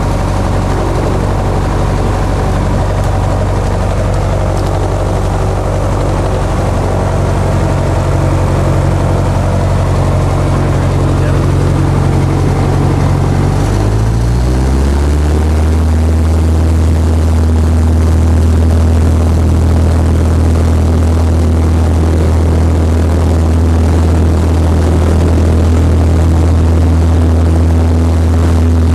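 Citabria's engine and propeller heard from inside the cabin, running steadily. About halfway through, the engine speeds up, its pitch rising over a second or so, and it holds the higher, slightly louder note.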